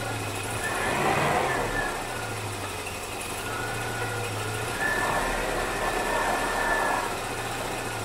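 V8 engine of a 1964 Rambler American, fed by an Edelbrock carburetor, idling steadily, with its sound swelling slightly a couple of times.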